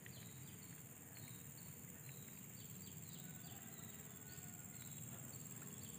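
Faint field ambience: a steady high-pitched insect drone, with short chirps repeating about twice a second over a low background hiss.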